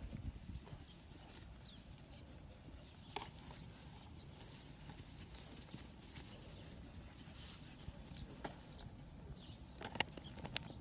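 Great Dane puppies playing with an adult Great Dane on grass: scattered light taps and knocks and a few faint, short, high squeaks over a low rumble. The loudest knock comes near the end.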